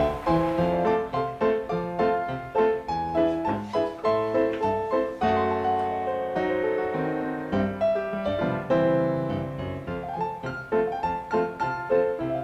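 Background music: piano melody with chords.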